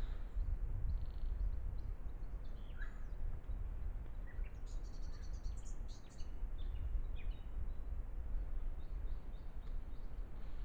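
Small birds chirping and calling, with a quick run of repeated high notes about five seconds in, over a steady low rumble.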